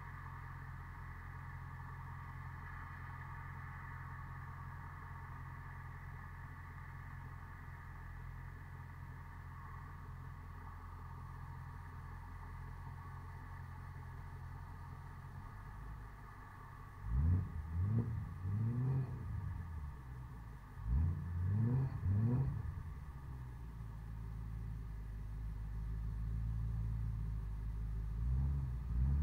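BMW E90 M3's V8 through an exhaust with the second catalytic converters removed and a Megan Racing Supremo cat-back, idling steadily. A little past halfway it is blipped in two short bursts of quick revs, then near the end the engine note climbs steadily as the car pulls away.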